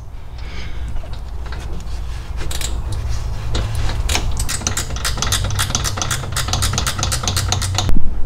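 Hand socket ratchet clicking in quick strokes as the 15 mm bolts of the sway bar bushing bracket are run down, over a steady low hum. A sharp knock near the end.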